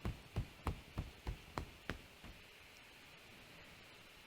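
Soft fist tapping on the crook of the arm for acupressure: a quick run of light, even taps, about three a second, that stops about two seconds in.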